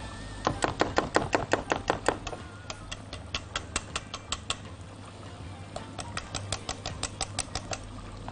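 A whisk clicking rapidly against the sides of a metal pot while stirring a butter-and-flour roux over the heat, in quick runs of about seven taps a second, with a pause near the middle. The roux is being cooked for a béchamel.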